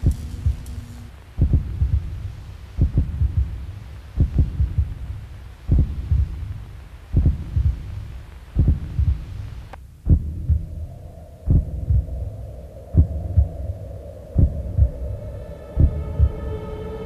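Slow heartbeat sound effect: low double thumps about every one and a half seconds. About ten seconds in a steady hum comes in under it, and near the end higher sustained tones join, swelling into a drone.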